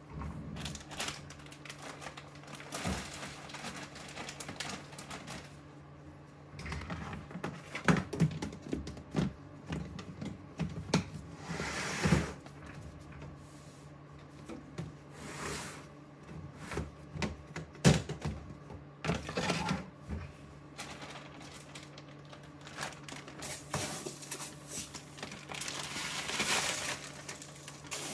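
Hands handling plastic storage tubs and clear plastic grow bags: irregular knocks, clicks and crinkling rustles, over a low steady hum.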